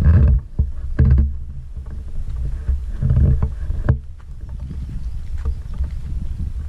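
Wind buffeting the camera's microphone: an uneven low rumble that swells in gusts near the start, about a second in, and around three seconds in, with a few sharp knocks.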